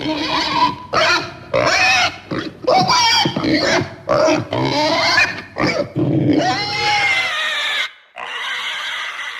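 Pig calls: a quick run of short, pitched, loud vocalisations, one after another, with a brief break near the end.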